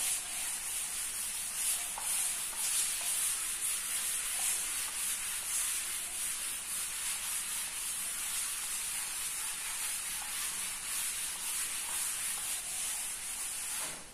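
A chalkboard eraser rubbing back and forth across a chalkboard, wiping off chalk writing: a steady, hissy scrubbing that goes on throughout.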